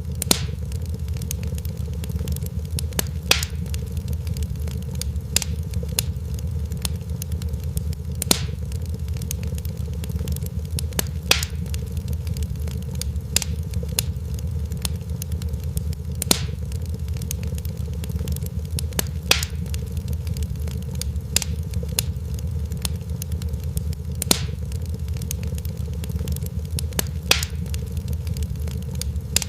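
Fire crackling, with a steady low rumble under it and sharp pops every few seconds among smaller crackles.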